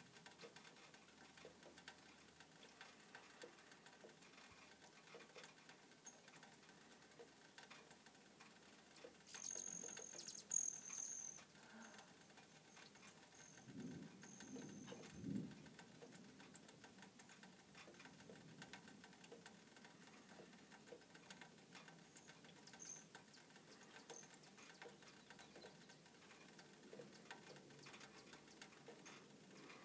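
Near silence: faint outdoor background hiss with scattered small ticks, a brief high chirp about ten seconds in and a faint low sound around fifteen seconds. The distant tornado itself is not heard.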